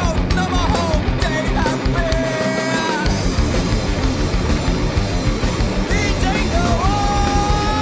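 Rock band music with a pitched melody that slides between notes in the first few seconds and a long held high note beginning about a second before the end.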